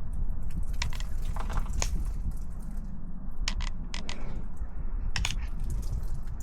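Short metallic clicks and a brief rattle of an AR-style rifle being handled and readied to fire, over a steady low rumble.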